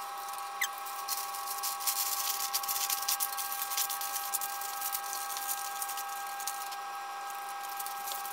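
Greaseproof paper crinkling and rustling as it is pressed and folded into a loaf tin, busiest in the first half, over a steady high hum.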